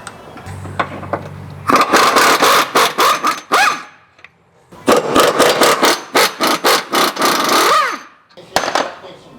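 Impact wrench working a suspension bolt loose. It whirs briefly, then hammers in two long bursts of rapid, even blows, with a few more short hits near the end.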